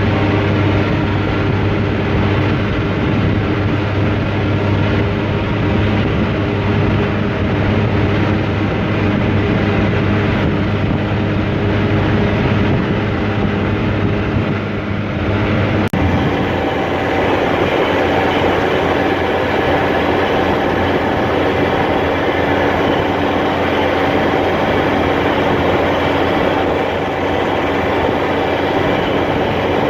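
John Deere 4250 tractor's six-cylinder diesel running steadily under load with a John Deere 3970 pull-type forage harvester turning behind it, a loud constant mechanical drone with a steady hum. About halfway through the tone shifts abruptly to a different, steady machine sound.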